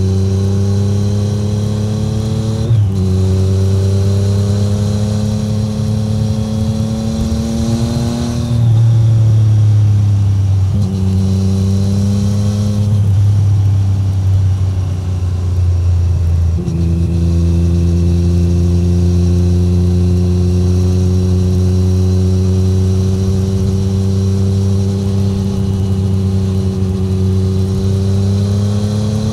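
Inline three-cylinder engine of a 2017 Triumph Street Triple 765R, heard through its SC Project SC1-R titanium exhaust while riding at part throttle. The revs rise and fall with a few gear changes, the pitch dropping abruptly about three seconds in, then climb slowly and steadily over the last dozen seconds.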